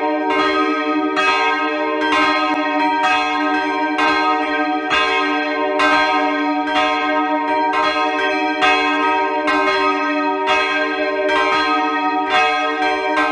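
Three church bells swinging and ringing together in a continuous peal. Their strokes overlap at roughly one to two strikes a second over a lasting hum.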